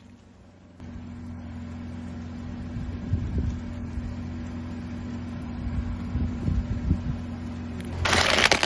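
A car engine idling with a steady low hum, with a few light clicks. Near the end a sudden loud crunch as the car's tyre rolls onto the already broken plastic toy.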